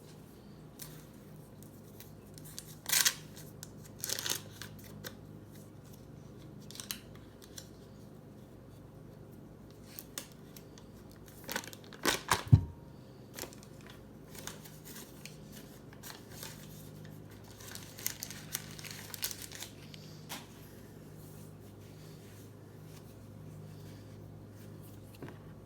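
Paper butter wrapper being crinkled and torn open, with scattered clicks and knocks from handling it on the counter; the loudest is a thump about twelve seconds in. A low steady hum runs underneath.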